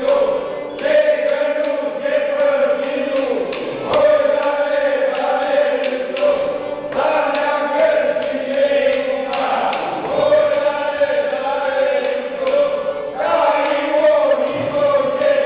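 Group of voices chanting a Romanian folk song in unison, held notes in phrases of about three seconds, each phrase breaking off and starting again.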